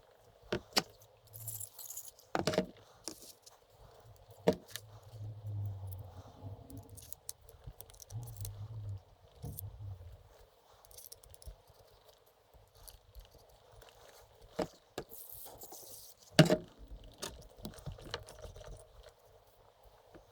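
Small metal transmission parts and hand tools clinking and knocking on a workbench as the SST mechatronics valve body is taken apart. There are scattered light clinks and a few sharper knocks, and a low hum comes and goes for a few seconds near the middle.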